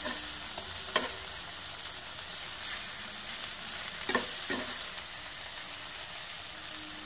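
Marinated chicken pieces sizzling steadily in hot oil in a nonstick frying pan. A slotted metal spatula knocks and scrapes against the pan once about a second in, then twice in quick succession around four seconds in.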